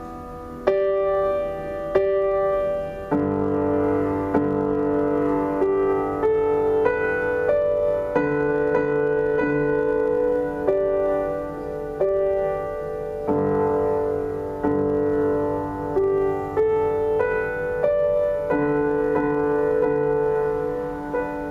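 Upright piano played by hand: a slow, gentle melody of single notes struck about once a second over lower held chords.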